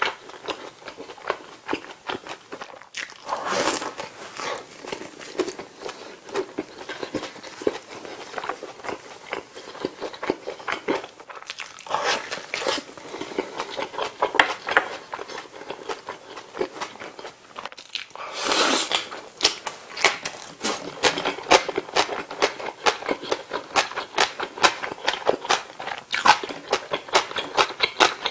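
Close-miked chewing of a McDonald's bulgogi burger and kimchi, a steady run of wet mouth clicks and smacks. Louder bites or crunches come about three and a half seconds in and again around eighteen seconds.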